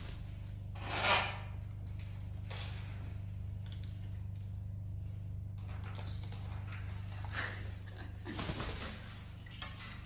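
Scattered light clinks and knocks, with a short noisy burst about a second in and a sharp click near the end, over a steady low hum.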